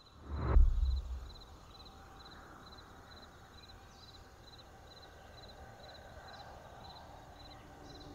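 A deep boom with a falling swish about half a second in. Then insects chirp steadily: short high chirps about two and a half times a second over a faint background of forest sound.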